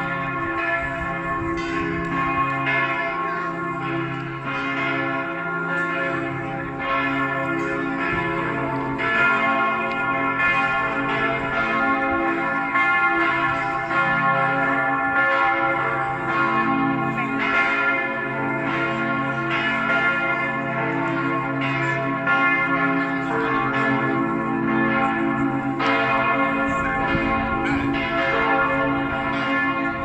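Several large church bells ringing together in a continuous peal, their strikes overlapping and the tones hanging on between them.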